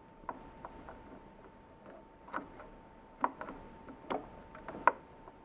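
Irregular light clicks and small knocks from the mechanism of a Samsung CLP-315 colour laser printer, around its loose developer clutch, over a faint steady whine.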